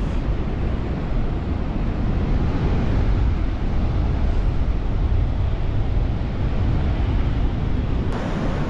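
Ocean surf washing on a sandy beach, a steady roar of breaking waves, with wind rumbling on the microphone.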